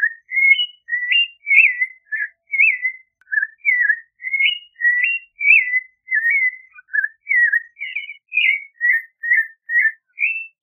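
Clay-colored thrush singing: an unbroken run of short, clear whistled notes, about two a second, each sliding up or down and varying from note to note.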